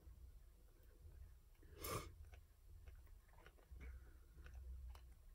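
Near silence: room tone with a low hum, a few faint clicks and one soft, brief noise about two seconds in.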